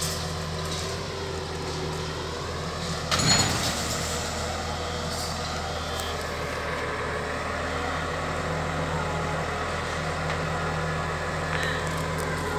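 XCMG QY100K-I truck crane's diesel engine running steadily under a lift, with a brief loud burst about three seconds in.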